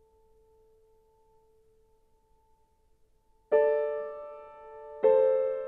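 Instrumental music: a faint held tone, then two loud piano notes struck about a second and a half apart, starting about three and a half seconds in, each left ringing and slowly fading.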